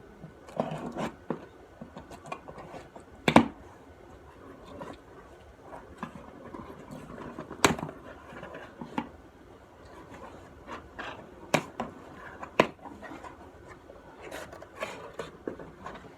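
Handling noise: scratching and rubbing with several sharp clicks or knocks, the loudest about three seconds in and again near eight seconds.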